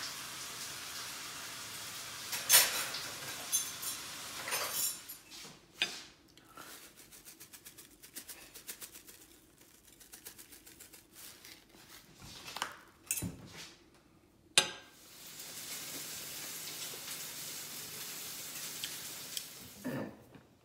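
Plates and cutlery clinking on a wooden dining table: several separate sharp clinks with lighter small taps between them, as food is served and steak is cut with knife and fork.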